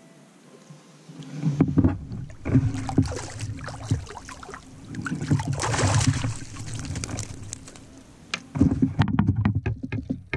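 Water sloshing and irregular knocks and clatter of gear against a plastic kayak as a hooked trout is brought alongside and netted, after a quiet first second or so.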